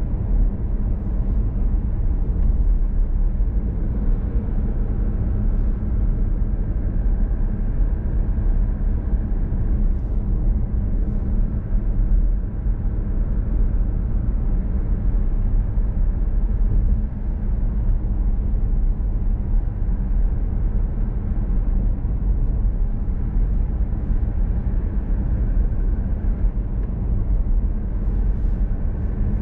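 Mazda CX-30 clean-diesel AWD cruising steadily, heard from inside the cabin: an even low rumble of engine and road noise that holds steady throughout.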